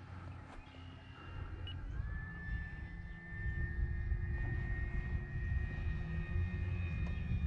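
Electric motor and propeller of a Flex Innovations RV8 G2 60E RC model airplane in flight. A steady whine comes in about two seconds in, rising slightly before it levels off, and the sound grows louder as the plane comes nearer. A low rumble runs underneath.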